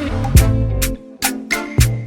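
Background music with a steady beat: regular drum hits over sustained pitched notes.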